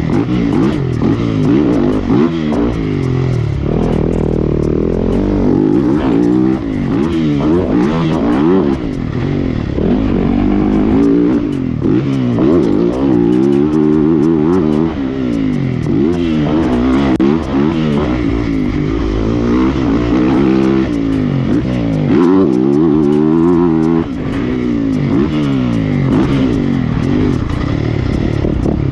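Yamaha motocross bike engine revving hard on a lap, its pitch rising and dropping back again and again as the rider works the throttle and gears, heard from the bike's onboard camera.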